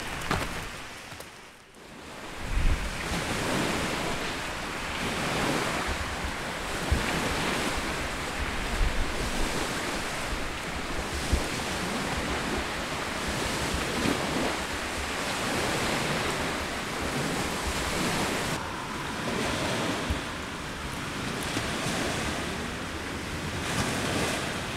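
Waves washing onto a pebbly lakeshore with wind gusting over the microphone. The surf rises and falls in surges every few seconds after a brief lull near the start.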